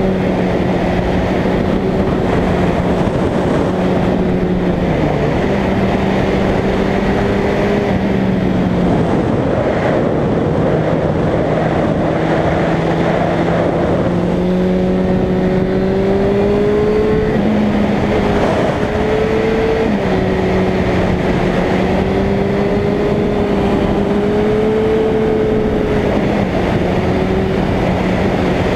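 Suzuki Bandit's inline-four engine running at road speed, heard from the rider's seat under heavy wind noise on the microphone. Its pitch dips briefly a few times and climbs gradually in the middle as the throttle and gears change.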